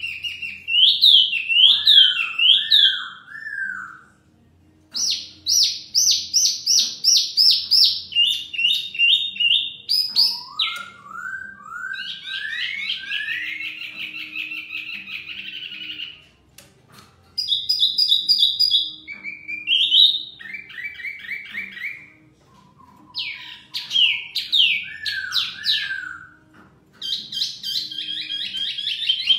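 A wambi mini and a poksay (laughingthrush) answering each other with loud, varied whistled song: quick runs of sweeping, slurred notes and trills in bursts, broken by a few short pauses.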